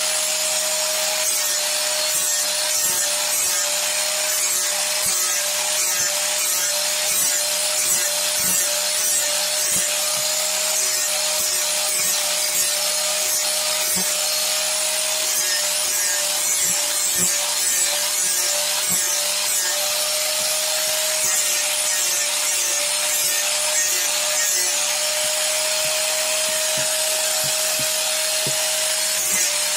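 Electric angle grinder with a sanding disc running steadily against carved wood, its motor whine holding one constant pitch over the gritty hiss of the disc scouring the wood.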